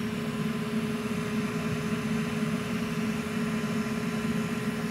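Steady machine hum with a faint constant whine that does not change.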